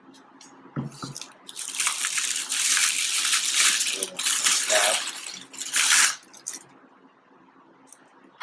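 Packaging being handled: plastic and cardboard rustling and crinkling in several long surges, starting about one and a half seconds in and stopping about two seconds before the end.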